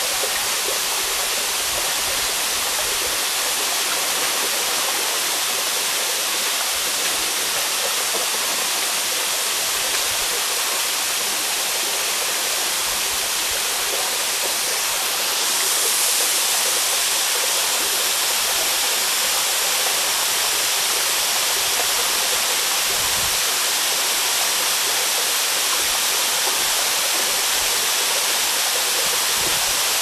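Partly frozen waterfall: thin streams of water falling down an ice-hung cliff make a steady rushing hiss with little low rumble. It grows slightly louder about halfway through.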